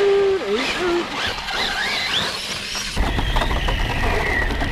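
Traxxas Slash RC truck's motor whining, its pitch rising and falling as it accelerates and slows. About three seconds in, the sound switches to a close, steady rumble with small knocks and a steadier whine, heard from a camera riding on the truck as it runs over rough grass.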